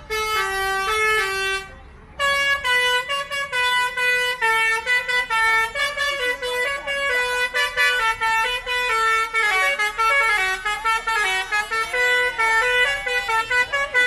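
Bus telolet horn (a basuri multi-trumpet air horn) playing a quick tune of stepped notes. It breaks off for a moment about two seconds in, then plays on in a fast, unbroken run of notes.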